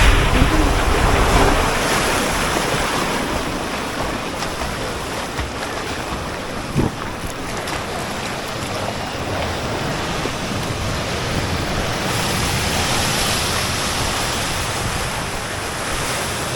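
Rushing, splashing water from a tube ride down a water slide, with wind buffeting the microphone. It is loudest in the first second or so, and there is a single short knock about seven seconds in.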